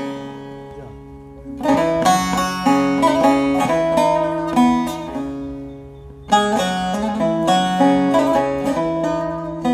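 Background music of plucked strings, in the style of banjo-led bluegrass, playing phrases of quick picked notes that fade to a lull about a second in and start again strongly twice.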